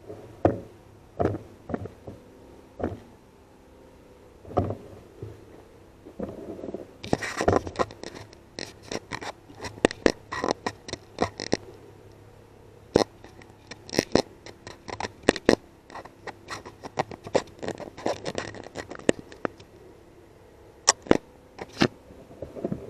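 Handling noise picked up by a night-vision camera mounted on an air rifle's scope: irregular knocks, clicks and rustling as the rifle is carried and moved, thickest through the middle, over a faint steady hum.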